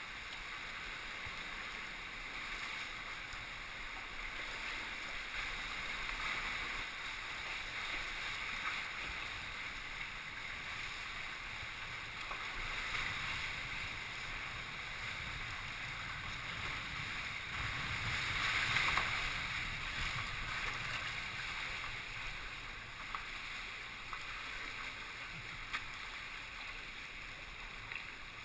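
Water splashing and lapping around a kayak out on the water, swelling and fading every few seconds. The loudest swell, about two-thirds of the way through, carries a low rumble.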